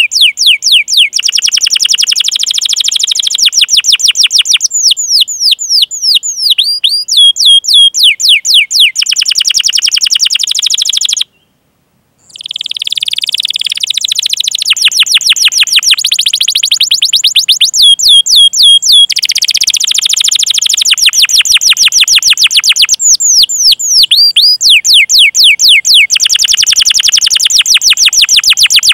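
Domestic canary singing: fast runs of high, downward-sweeping 'cuit cuit' chirps and rolling trills, in bouts, with a break of about a second near the middle.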